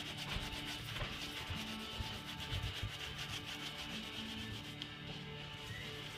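Damp Norwex Spiri scrubby sponge with marble-flour cleaning paste scrubbing baked-on vinyl sticker residue off the back of an oven, in rapid back-and-forth strokes, several a second, easing off near the end.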